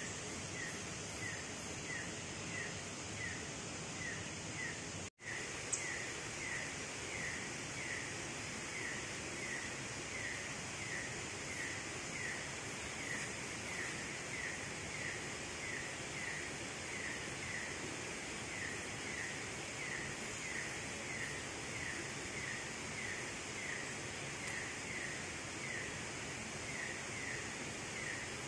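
Night jungle ambience: a steady hiss of insects and surroundings, with a short falling chirp from a small animal repeating evenly about one and a half times a second. The sound cuts out for an instant about five seconds in.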